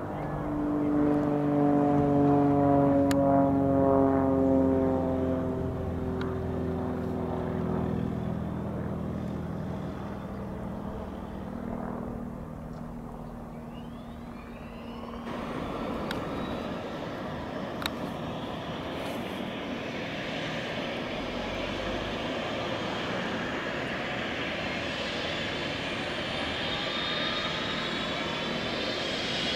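A Grob G115E trainer's four-cylinder piston engine and propeller passing low overhead: loud for the first few seconds, then dropping in pitch and fading as it climbs away. About halfway through the sound switches to a Eurocopter EC135 helicopter idling on its pad, its turbine engines giving a steady rush with a high whine that rises over the last several seconds.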